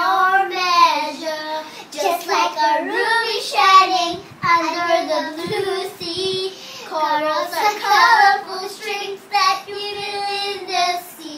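A young girl singing a love song unaccompanied, in phrases with long held notes.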